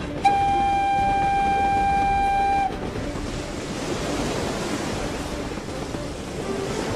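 Cartoon vehicle horn sounding one steady note for about two and a half seconds, followed by a steady rushing, rumbling noise.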